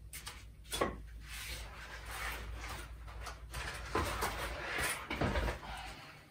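Handling noise: several knocks and clicks with rustling and scraping in between, as hard objects are moved about.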